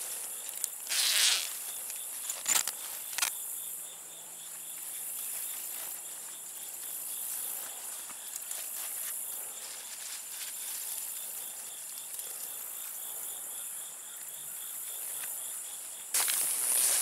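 Steady, high-pitched chorus of insects such as crickets, trilling without a break. A few brief rustles and knocks in the first few seconds come from pawpaw fruit being handled into a mesh bag, and a louder rush of noise sets in near the end.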